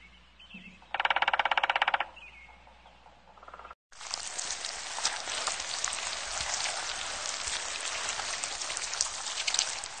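A yellow-bellied sapsucker drums on tree bark in a fast, even roll lasting about a second. Then comes a steady crackling hiss full of tiny clicks.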